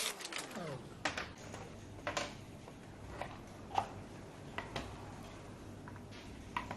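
Scattered light clicks and taps of screws and plastic cover parts being handled as an electric scooter's cover is unscrewed. At the very start a whine falling in pitch dies away within the first second.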